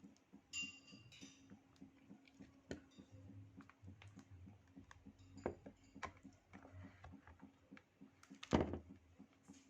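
Faint clinking of tableware, with a short ringing clink about half a second in, many small clicks, and one louder knock near the end.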